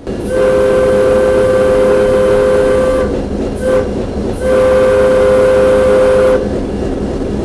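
Locomotive whistle sounding its departure signal after the highball: a long blast, a short toot, then another long blast, over the steady low rumble of the train.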